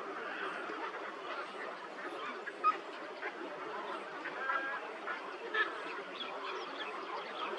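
A dense chorus of many birds calling at once, short overlapping calls with a few louder single calls standing out, the sharpest about two and a half seconds in.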